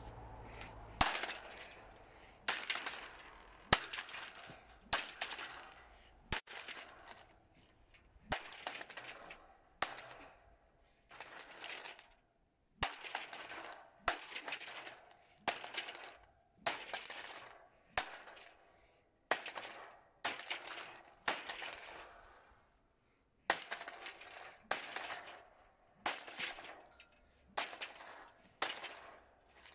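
A plastic stand fan and its wire guard being smashed by a long run of blows, about one a second. Each blow is a sharp crash with a short rattling clatter after it.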